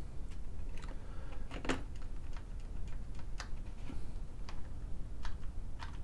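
Irregular light plastic clicks and ticks, about a dozen in six seconds, from keycaps being handled and pressed on an IBM Model M keyboard's key plate. The keys are being tested, and the F1 key, whose buckling spring is duff, is flat out not working.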